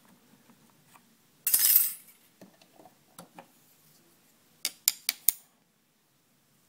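One short rasping stroke of a small fine-toothed saw cutting into a wooden stick, followed by a few light handling clicks and then four quick metallic clinks.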